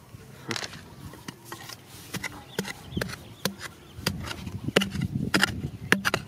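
Short-handled metal digging tool chopping and scraping into crumbly soil and small stones, in irregular strikes that come quicker and louder from about four seconds in.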